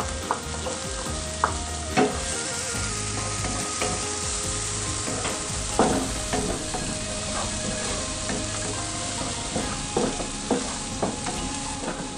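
Diced onion and garlic sizzling in melted margarine in a nonstick wok, sautéing until soft. A wooden spatula stirs them, knocking against the pan several times.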